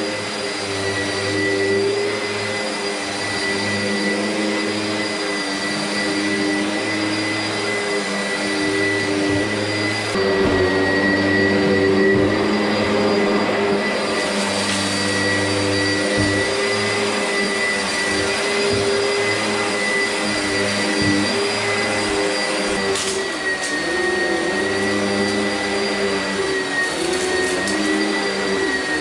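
Oreck XL upright vacuum cleaner running on carpet: a steady high whine over a low hum that comes and goes as it is pushed back and forth.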